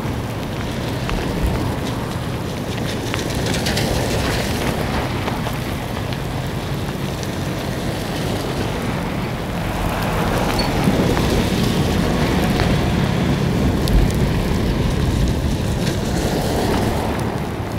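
Heavy rain pouring onto a road, with wind gusting on the microphone and cars hissing through standing water as they pass. The downpour grows louder about ten seconds in.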